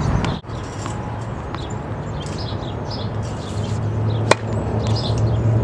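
Tennis racket striking the ball on a serve: one sharp crack about four seconds in, over a steady low hum and birds chirping.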